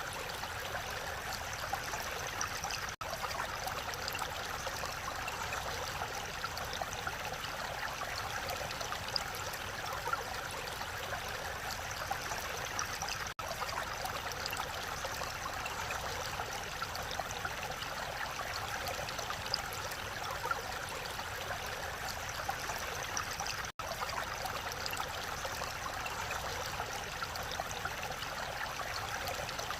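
Mountain stream in a rocky valley, water rushing steadily over stones. The sound drops out for an instant three times.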